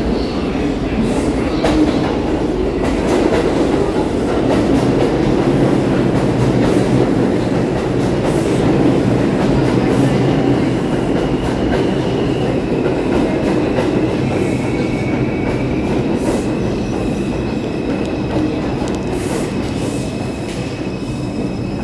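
New York City IRT subway train running along a station platform: a steady heavy rumble with wheels clacking over the rail joints. A thin high whine joins in about halfway.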